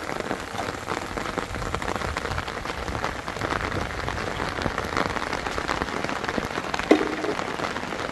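Steady rain falling, with many small drops pattering on a surface, and one brief louder knock about seven seconds in.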